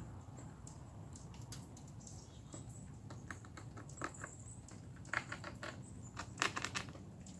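Quick dry clicks, taps and scratches from a squirrel, scattered and bunching into two busier runs about five and six and a half seconds in.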